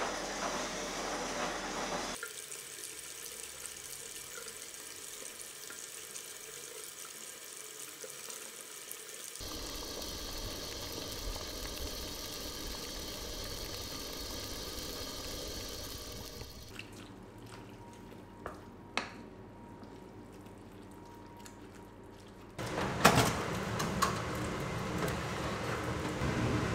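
Kitchen sounds across several cuts: running water and washing at a sink, a few light clicks, then, near the end, clatters as a metal baking tray is slid out of an oven.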